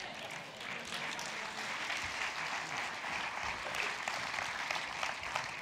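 Congregation applauding, a steady patter of many hands clapping that dies away at the end.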